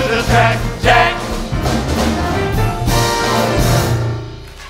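Band music with brass in a jazz style, ending on a held chord that fades away about four seconds in.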